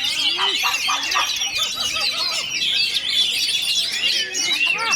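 A chorus of many oriental magpie-robins (kacer) singing at once from their contest cages: a dense, steady wall of rapid chirps, trills and whistles overlapping one another, with no pause.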